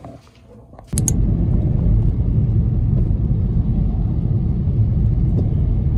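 After a second of quiet room tone, the steady low rumble of a moving car, heard from inside the cabin, starts suddenly.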